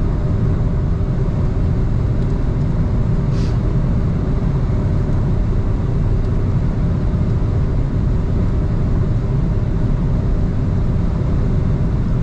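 A car driving at speed: a steady, loud rumble of road, wind and engine noise with a constant hum through it.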